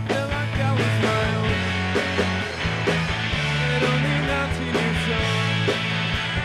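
Rock band playing live: electric guitars over bass and a drum kit keeping a steady beat.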